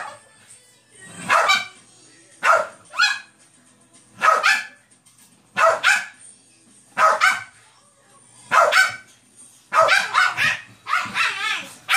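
Puppy barks repeating about once every second and a half, coming closer together near the end.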